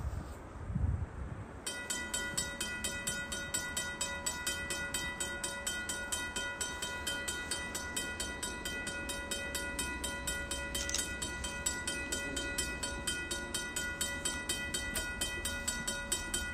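Griswold/RACO mechanical level-crossing bell ringing in fast, even strokes, starting about two seconds in as the crossing signals activate and the gates lower for an approaching train. A couple of low thumps come just before it.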